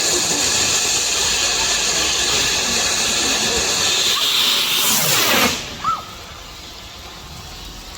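Firework fountain spraying with a loud, steady hiss that cuts off suddenly about five and a half seconds in.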